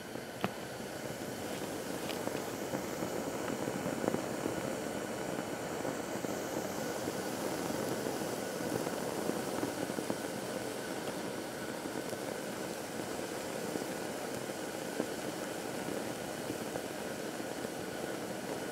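Glitter burning and melting around a red-hot nickel ball: a steady rush of flame with a few faint pops.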